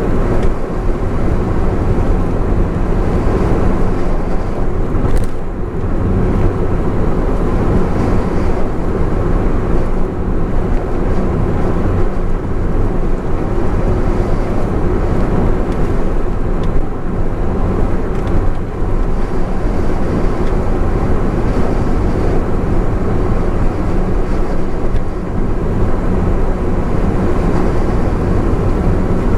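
Honda S660 driving at expressway speed: steady engine, tyre and wind noise, with a short click about five seconds in.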